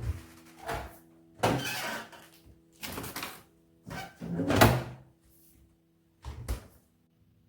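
A series of knocks and bumps from household handling, about seven, the loudest a little before five seconds in, over soft background music that stops near the end.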